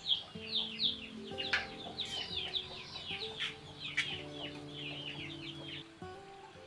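Chicks peeping: a rapid run of short, falling high chirps that stops about six seconds in, over soft background music.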